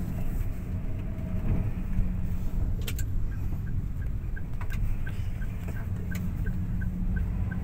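Steady road and engine rumble heard inside a moving car's cabin. About three seconds in, a light regular ticking starts at about two to three ticks a second and runs for some four seconds, typical of a turn-signal indicator. A few sharp knocks come through where the phone recording it is handled.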